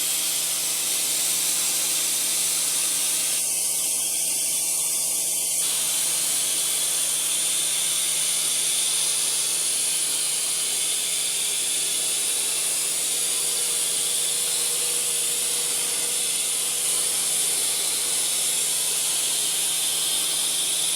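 Profile machining center running while chamfering, a steady high hiss over a low machine hum.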